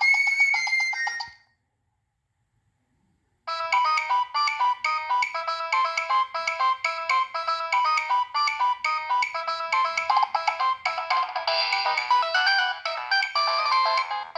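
Preloaded ringtones of a Nokia 6015i mobile phone: one tune ends and fades out in the first second and a half, and after a short silence a new tune starts about three and a half seconds in and plays on, with several notes sounding at once in quick, even steps.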